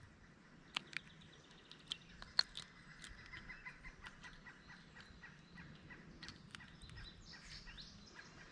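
Faint bird calls, with a quick run of short repeated notes in the middle, over a low steady background noise, broken by a few sharp clicks and taps, the loudest about two and a half seconds in.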